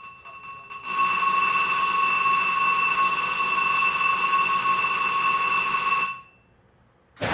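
Electric alarm bell ringing as a warning before a torpedo launch: quieter at first, then loud and steady for about five seconds, cutting off suddenly about six seconds in. A sudden loud burst starts right at the end.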